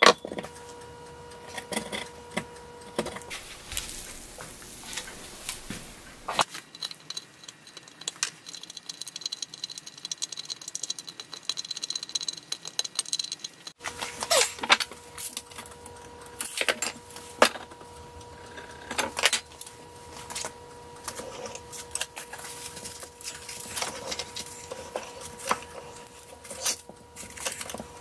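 Workbench handling noises: scattered knocks, taps and metallic clinks of tools and material being handled, over a faint steady hum.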